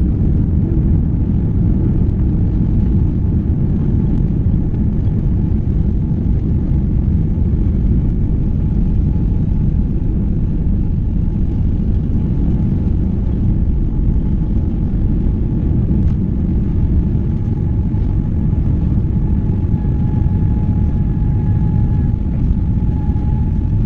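Cabin noise of a British Airways Boeing 787 Dreamliner during takeoff: the Rolls-Royce Trent 1000 engines at takeoff thrust give a loud, steady low rumble that carries on through the takeoff roll, liftoff and climb. A faint steady whine joins near the end.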